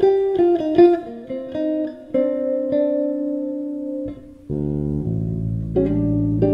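Six-string electric bass played with a pick: a quick run of notes high on the neck, one held note, then low notes ringing together about halfway through, and higher notes again near the end.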